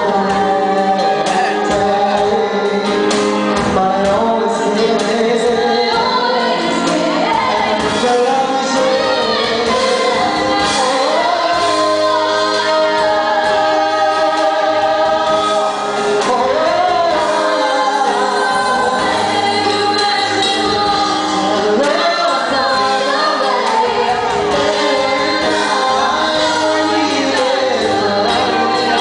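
A man and a woman singing a duet live into microphones, over musical accompaniment.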